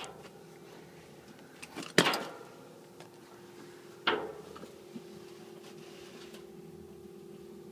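Two sharp knocks on the empty steel 55-gallon drum, about two seconds apart, each with a short metallic ring, the first the louder, with a few lighter clicks just before. A steady low hum runs underneath.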